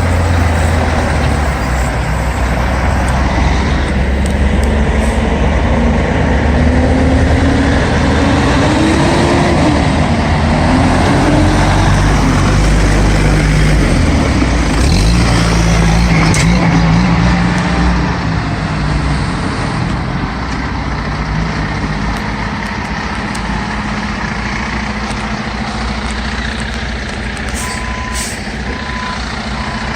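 Heavy diesel equipment engine running loud, its pitch rising and falling as it revs under load. Near the end a reversing alarm starts beeping steadily.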